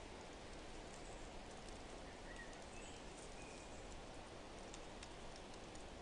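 Faint, steady rain ambience: an even hiss with scattered light drop ticks, and a few faint high chirps between about two and three and a half seconds in.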